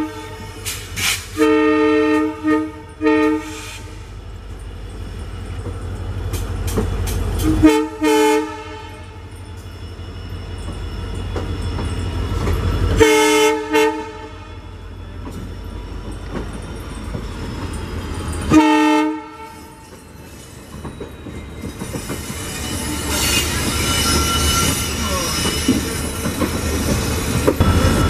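Departing Indian Railways diesel locomotives sounding their horns: a run of short toots a second or two in, then single blasts about five seconds apart, over the low rumble of a WDG4's diesel engine pulling away. In the last few seconds the clatter of wheels over rail joints and points builds as the coaches roll past.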